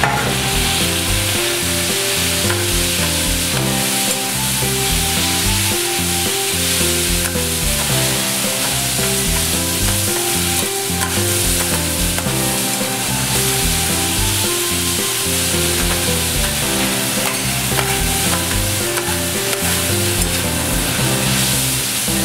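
Udon noodles, beef offal and cabbage sizzling steadily on a hot iron griddle, with metal spatulas stirring and scraping them across the plate as they are turned and coated in sauce.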